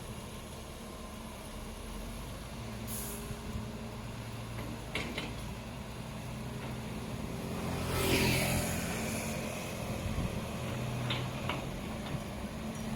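Heavy construction vehicles' engines running steadily, with a few sharp knocks and a louder hissing burst about eight seconds in.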